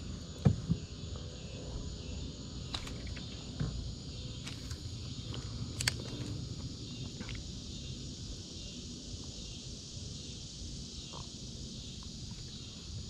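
Steady, high-pitched chorus of evening insects, with a few scattered short knocks and clicks, the loudest about half a second in.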